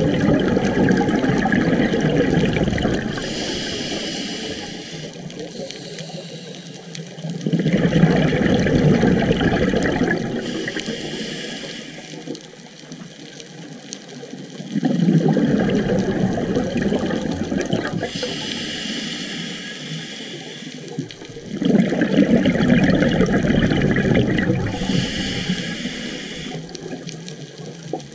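Scuba diver breathing through a regulator: a rumble of exhaled bubbles, then a high hiss as the next breath is drawn, repeating four times about seven seconds apart.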